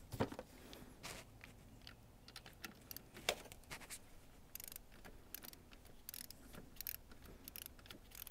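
Ratchet of a torque wrench clicking in quick runs as the battery-terminal nut on a new alternator is run down, with a few louder metallic knocks and clicks near the start.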